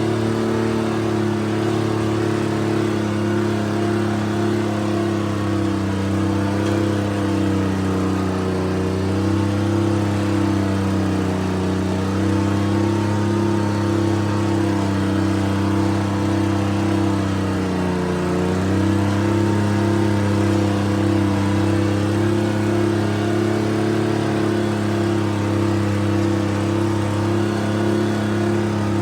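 Timberjack 225D skidder's diesel engine running steadily under load. Its pitch sags briefly about eight seconds in and again, more deeply, about eighteen seconds in.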